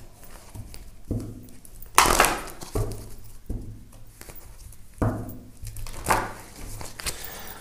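A deck of tarot cards being shuffled and handled: a handful of separate rustling swishes and taps, the loudest about two seconds in.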